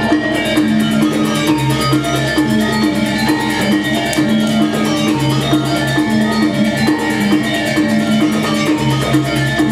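Balinese gamelan music: bronze metallophones struck in rapid, dense figures over held low notes.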